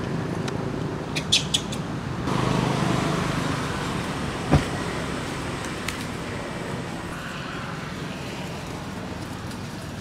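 Steady outdoor background noise, like distant road traffic, with a few sharp clicks about a second in and a single knock midway.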